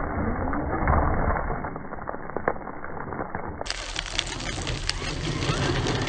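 Traxxas X-Maxx electric RC monster truck driving over gravel: its brushless motor whines up and down with the throttle while the tyres crunch and throw stones, with a few sharp clicks. The first few seconds sound muffled.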